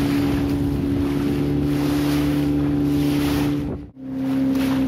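An engine running at a steady pitch, with wind on the microphone. Near the end the sound cuts out for a split second and comes back at a slightly lower pitch.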